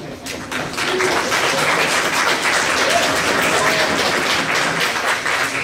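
Audience applauding, swelling about a second in and holding loudly before tailing off near the end.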